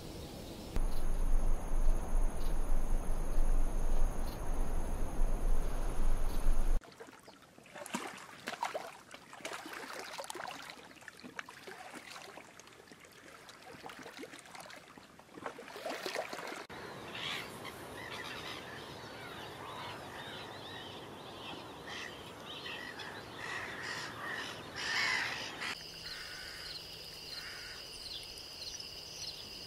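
Outdoor nature sound in several abrupt sections. First a loud rushing noise with a steady high whine. From about 7 s there are scattered short bird calls and clicks. Near the end a steady high insect trill sets in.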